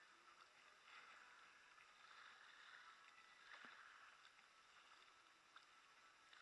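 Faint swishes of kayak paddle strokes through calm water, coming in a few soft swells, with one light knock about three and a half seconds in.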